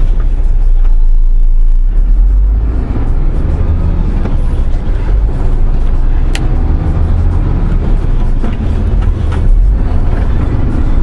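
Steady low rumble of a MAN truck's diesel engine and road noise heard inside the cab while driving in traffic, with one sharp click about six and a half seconds in.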